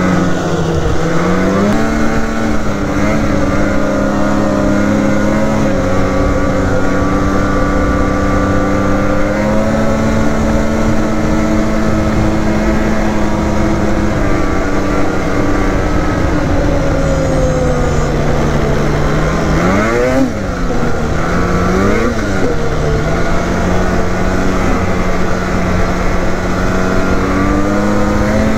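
Polaris Matryx Assault 146 snowmobile's two-stroke engine running steadily at trail speed, its pitch stepping slightly up and down with the throttle. About two-thirds through, the engine sags, then gives two quick throttle blips that rise and fall, and it picks up again near the end.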